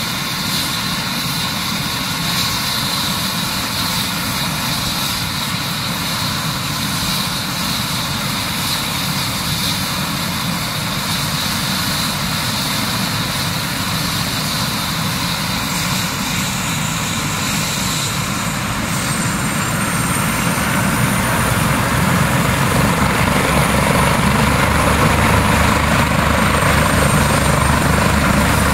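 Eurocopter EC145 rescue helicopter running on the ground, a steady turbine whine over rotor noise. About two-thirds of the way through it grows louder, with a higher whine and a regular low beat from the rotor, as the power comes up.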